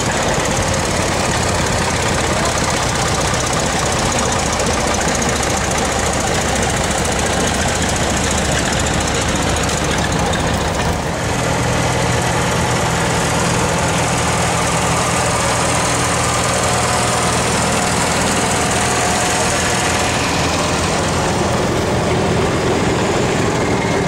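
Old tractor engines running steadily as tractors drive past, with a lower engine note growing stronger about halfway through.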